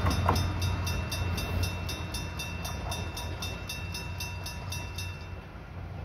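Electric-bell level-crossing alarm ringing in rapid, even strokes, then stopping about five seconds in as the crossing clears. Under it the low rumble of a departing KiHa 200 diesel railcar fades away.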